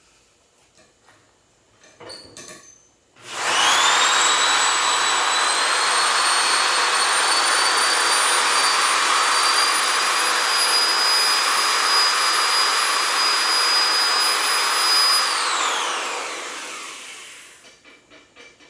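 Electric drill driving a sectional steel cleaning rod and a bore brush loaded with lapping compound through a rifle barrel, to lap out copper and brass fouling. The motor whine starts about three seconds in, rises quickly to a steady pitch and holds, then winds down and falls in pitch near the end. A few faint handling clicks come just before it starts.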